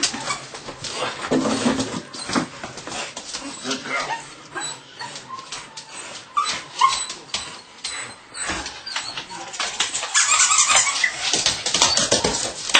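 Belgian Malinois puppy whimpering, with two short rising yelps about six and a half seconds in, over the crackle and clatter of a plastic bottle that it mouths and tugs.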